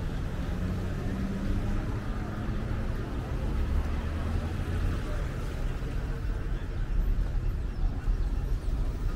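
Busy street-market ambience: a car's engine runs at low speed as it passes close by, a steady low hum under a background murmur of voices.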